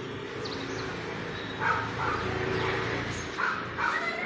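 Several short animal calls, a few in the space of about three seconds, loudest near the middle and near the end.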